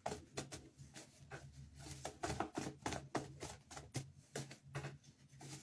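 A deck of reading cards being shuffled and handled by hand: a quick, irregular run of soft card flicks and slaps, over a faint steady low hum.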